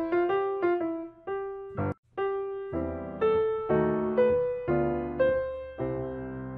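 Background piano music: a slow melody of single notes that each strike and fade, with a short break about two seconds in.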